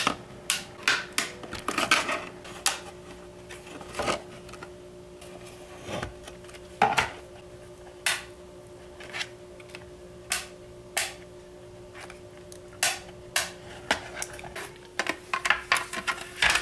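Plastic retaining clips of a Seagate Expansion external hard drive enclosure clicking and snapping as a credit card is worked along the edge of the case to pry it open. The sharp clicks come irregularly, thickest near the start and again near the end.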